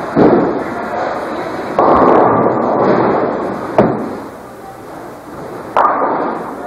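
Bowling alley noise: pins crashing and sharp knocks. Loud clattering bursts come about two seconds in and again near six seconds, each dying away, with a sharp knock near four seconds.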